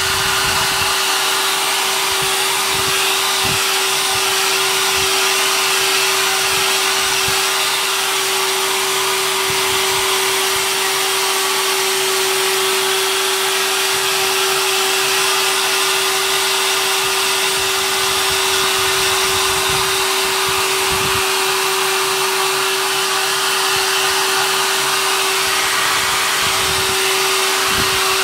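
An old hair dryer running steadily on one setting: a rush of air with a constant whine held at one pitch.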